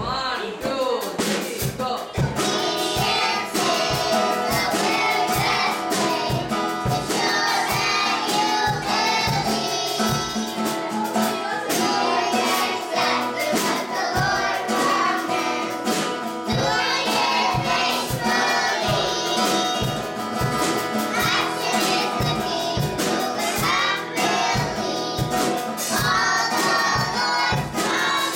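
A group of young children singing a song together over instrumental accompaniment that carries a steady beat.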